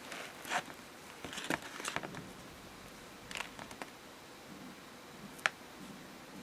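Soft, intermittent rustles and light taps from handling a packaged sugar-coated fried bread, in a few short bursts with quiet between them.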